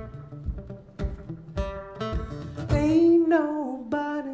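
Solo acoustic guitar being strummed and picked in a slow song, with a woman's sung note held about three seconds in that slides down in pitch near the end.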